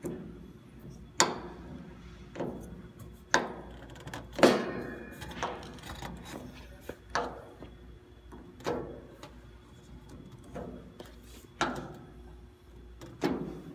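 Sharp clicks and knocks at irregular intervals of one to two seconds, each with a short metallic ring, from the Weber Genesis gas grill's burner control knobs and stainless control panel being worked.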